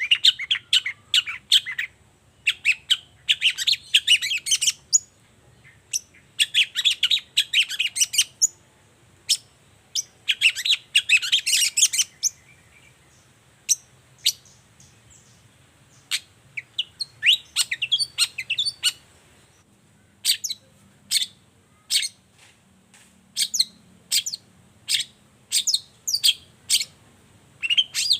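Long-tailed shrike singing: rapid runs of short, sharp notes in phrases a second or two long with brief pauses between them. From about two-thirds of the way through, the song changes to separate single notes spaced roughly half a second to a second apart.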